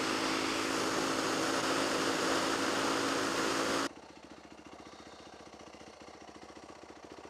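Yamaha WR450F single-cylinder four-stroke engine running at highway cruising speed, with wind rushing over the helmet-mounted microphone. After an abrupt cut about four seconds in, the same engine idles at a quieter, steady, even beat.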